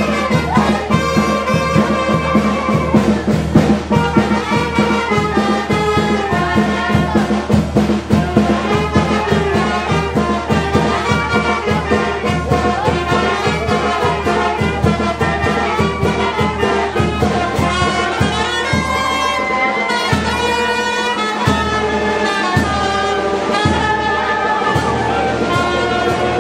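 Brass band music: horns playing a melody over a steady beat.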